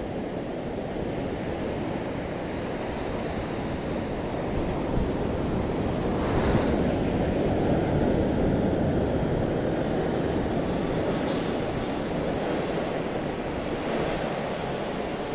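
Surf breaking and washing up a sand beach, with wind buffeting the microphone: a steady rush that swells a little about six seconds in and eases off near the end.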